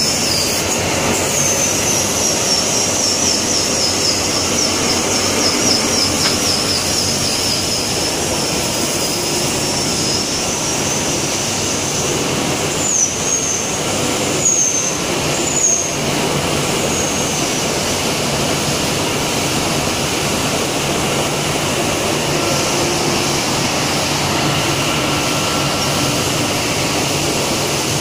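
Machinery of an organic fertilizer pellet production line running in a factory hall: rotary drum, fans and conveyors making a loud, steady mechanical noise. Over the first several seconds a thin, high, wavering squeal rides on top, and a few short high chirps come around the middle.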